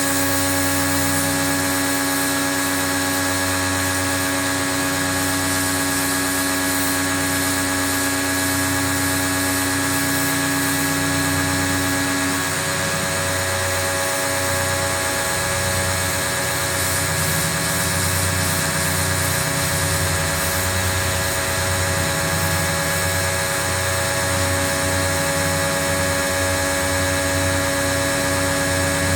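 Pro-Kleen 1600 pressure washer running steadily, a motor-and-pump drone under the hiss of the spray, its tone shifting about twelve seconds in.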